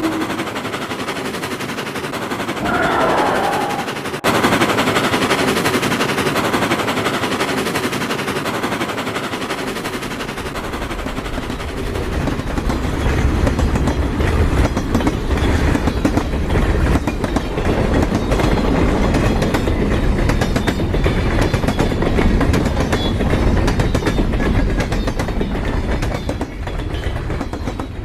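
Sound effect built from train sounds: a train's rapid, continuous clatter of wheels on rails, with a brief wavering tone about three seconds in and a deep rumble that swells from about ten seconds in.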